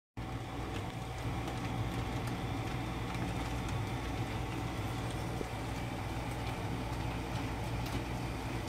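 Built-in electric blower fan of a Gemmy airblown inflatable running with a steady hum, inflating the figure, with the nylon fabric rustling as it fills out.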